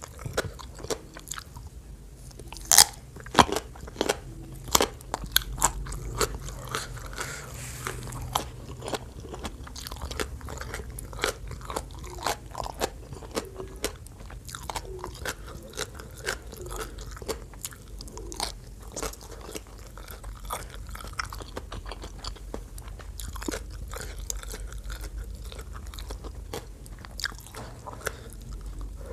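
Close-miked biting and chewing of crisp raw vegetables dipped in spicy papaya salad: sharp crunches, loudest in a cluster a few seconds in, then steady smaller crunching and chewing.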